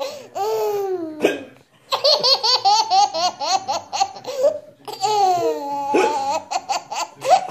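A 10-month-old baby laughing hard while she has the hiccups: long laughs that fall in pitch, broken by runs of fast laughter at about five pulses a second. Two sharp hiccups cut in, about a second in and again about six seconds in.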